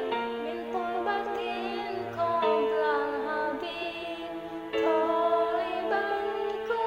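A woman singing a melody over backing music, her voice sung into a handheld karaoke microphone, with long held notes under the bending vocal line.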